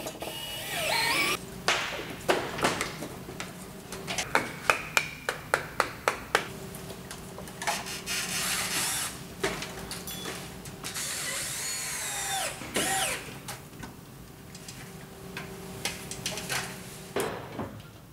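A cordless drill whirs in short runs as it drives into wooden blocking, with a string of a dozen or so sharp hammer blows on the wood in between, from about two to seven seconds in. The longer drill runs come after, dropping in pitch as the drill slows.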